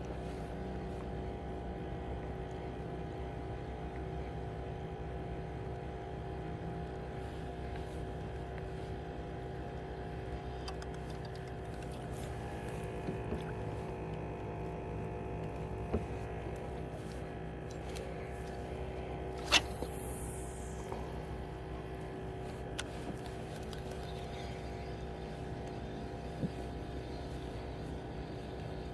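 Steady drone of a motorboat's engine running. A few sharp clicks cut through it, the loudest about two-thirds of the way in with a short falling hiss after it.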